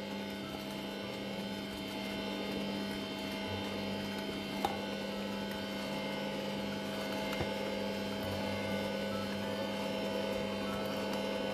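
Bosch stand mixer running at a steady speed, its motor giving an even hum as the wire whisk beats cake batter in the plastic bowl.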